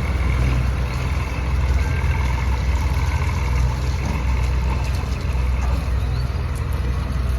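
Combine harvester's diesel engine running with a loud, steady low drone.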